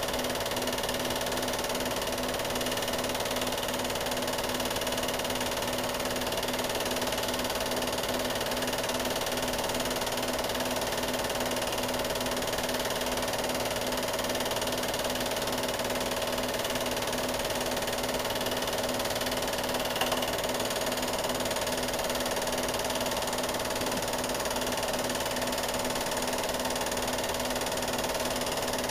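Steady whirring hum with a constant pitch over a hiss. It does not change with the picture, and one brief click comes about twenty seconds in.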